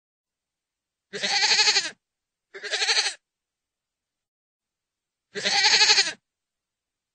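Goat bleating three times: a long wavering bleat about a second in, a shorter one right after it, and another long one a few seconds later, with dead silence between the calls.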